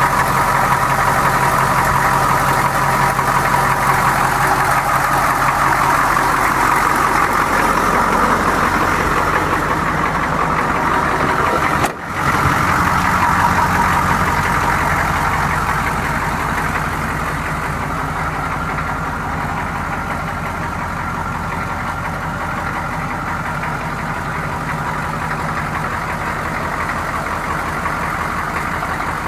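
1984 M1008 Chevrolet pickup's 6.2L Detroit Diesel V8 idling steadily. The sound briefly drops out about twelve seconds in and is a little quieter in the second half.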